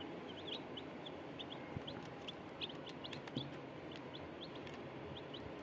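Chicks peeping: short, high, quickly rising cheeps, about four or five a second, over a steady background hiss, with a few faint clicks.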